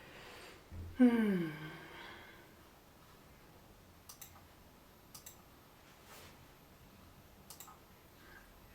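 A short voiced sigh about a second in, its pitch falling as it fades, followed by a few faint, scattered clicks.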